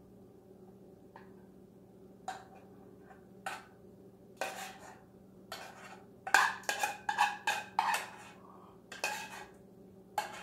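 A utensil scraping and knocking against a small saucepan as its chicken and cream of mushroom sauce are scraped out onto a plate of pasta: a few scattered scrapes at first, then a quick run of them in the second half, over a faint steady hum.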